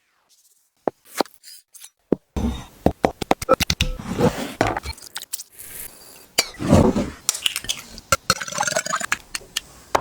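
Kitchen utensil scraping and clinking against dishes in quick, irregular strokes, starting a couple of seconds in after a few isolated clicks.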